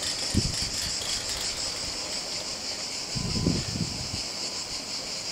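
Insects buzzing steadily at a high pitch with a slight pulse. Two low rumbles cut in, a short one about half a second in and a longer one around three seconds in.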